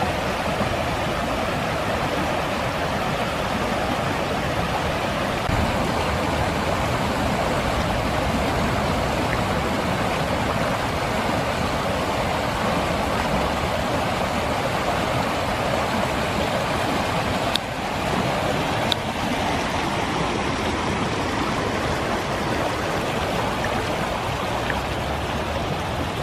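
Rain-swollen creek running fast over rocks in muddy rapids: a steady rush of water.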